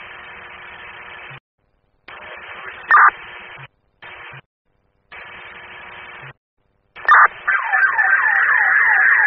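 Scanner radio audio: open-channel hiss that cuts in and out, with a short loud beep about three seconds in and another near seven. Then a transmission opens carrying an emergency vehicle siren in a fast yelp, its pitch sweeping down about three times a second, heard through the radio.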